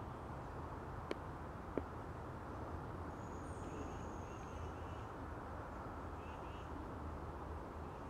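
Woodland ambience: a steady low background hiss with two sharp knocks about two-thirds of a second apart near the start. Faint, high bird chirps come a few times in the second half.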